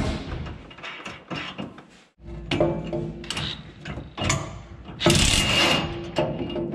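Ratchet wrench clicking as a nut is run onto a sway bar bracket bolt, in quick runs of short clicks with a brief break about two seconds in.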